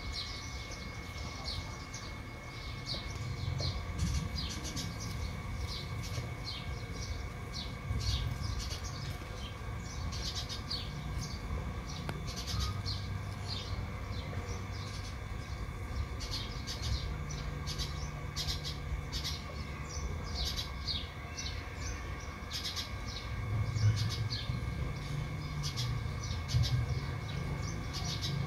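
Small birds chirping over and over in short, irregular notes, over a steady low hum.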